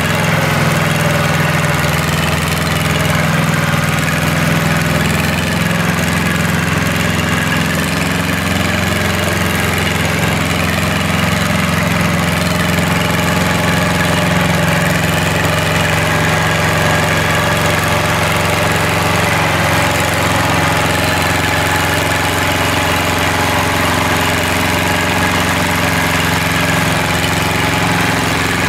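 Yanmar YM2700 small tractor's diesel engine running steadily under load as it hauls a trailer loaded with sacks of rice.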